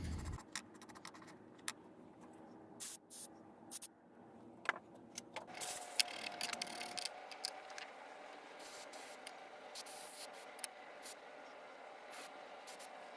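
Scattered light clicks, taps and scrapes of small metal stove parts being handled, with a faint steady hum from about six seconds in.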